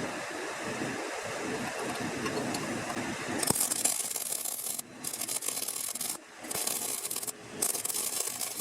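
Four hard rubbing strokes, each about a second long with short pauses between them, starting about three and a half seconds in. Before them, a steady lower noise.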